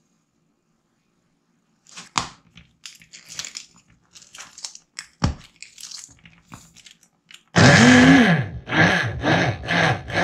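Clicks and knocks of a Tescom countertop blender's plastic jar and lid being handled, then the blender motor starts in four short pulses, each rising and falling in pitch, as it chops pineapple chunks into juice.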